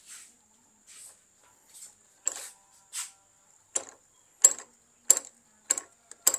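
Motorcycle front brake lever being pumped repeatedly while the hydraulic brake is bled: a run of sharp clicks, soft and uneven at first, then louder and regular at about three every two seconds.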